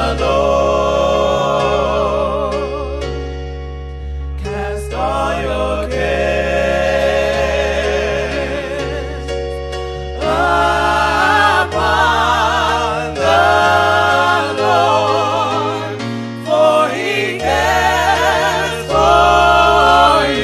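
Gospel music: singing voices with wide vibrato over steady low bass notes. It dips briefly about four seconds in and grows louder about ten seconds in.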